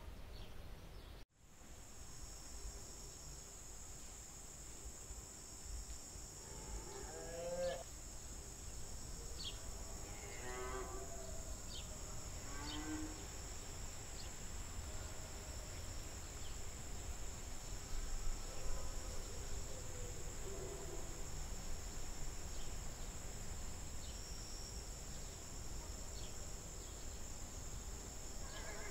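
Cattle mooing several times, in drawn-out calls, over a steady high drone of insects. The ambience drops out briefly about a second in and then starts again.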